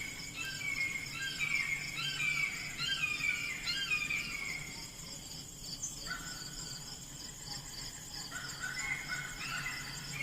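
A flock of Canada geese honking as they fly over, many short overlapping calls in quick succession, easing off about halfway through and picking up again. A steady high insect trill runs underneath.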